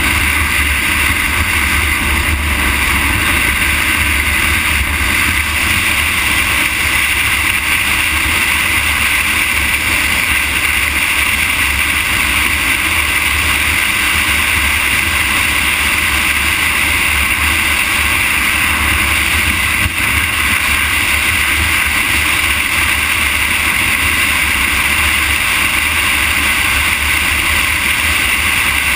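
Steady wind rush and low rumble on the microphone of a camera mounted to a vehicle moving along an asphalt highway, even and unchanging throughout.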